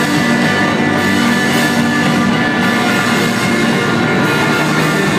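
Live instrumental post-rock band playing loud: several electric guitars ring out sustained, layered notes over a dense wash of sound, heard from within the audience.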